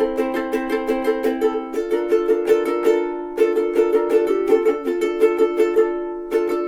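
Millar TM-210L long neck soprano ukulele, mahogany-bodied, strummed in a steady rhythm with changing chords. Twice the strumming stops briefly and a chord rings and fades before it starts again.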